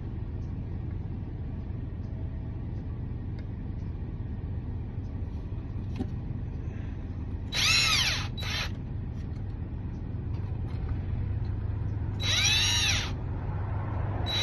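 Cordless drill run in two short bursts, about eight and about twelve seconds in, its whine rising and falling each time, over a steady low hum.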